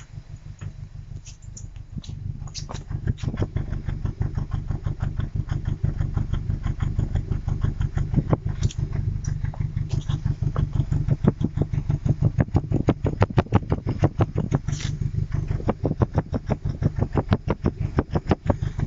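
Mazda MX-5 Mk3's four-cylinder engine idling roughly, its running coming as rapid, uneven pulses several times a second. It grows louder over the first few seconds.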